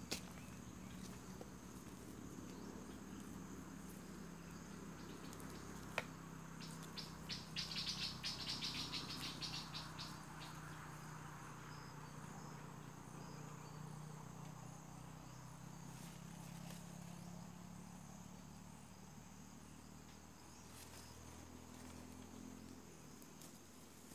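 Insects calling in forest undergrowth: a steady high buzz throughout, with a louder, rapid pulsing insect call for about three seconds near the middle. A single sharp click sounds just before the pulsing begins.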